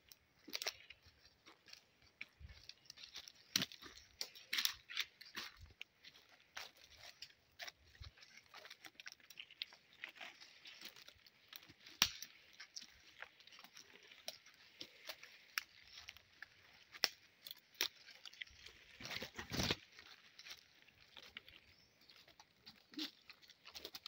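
Footsteps crunching through dry leaf litter and twigs on a forest trail: irregular crackles and snaps over a steady high hiss, with one heavier, longer crunch about nineteen seconds in.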